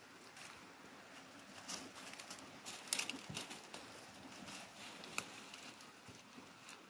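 Horses browsing in dry brush close by: scattered crackles and rustles of leaves and twigs being pulled and chewed. A few sharper snaps stand out, the loudest about three seconds in.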